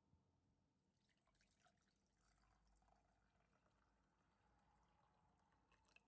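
Faint stream of water poured from a kettle into a ceramic mug holding a tea bag, starting about a second in, with a light knock near the end.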